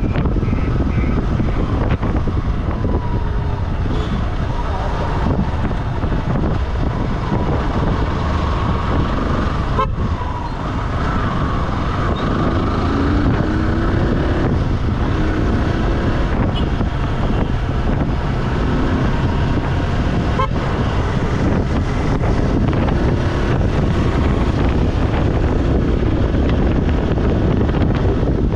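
Steady wind noise on the microphone over the engine and tyre noise of a vehicle travelling along the road.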